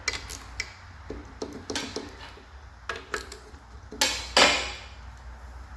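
Metal parts and tools being handled on a workbench: scattered light metallic clinks and taps, with a short loud rasping noise twice about four seconds in.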